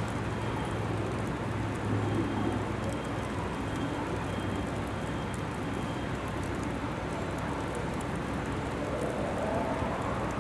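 Graupel (small ice pellets) falling and pattering on surfaces: a steady hiss scattered with tiny clicks. A steady low hum runs underneath, and a rising whine comes in near the end.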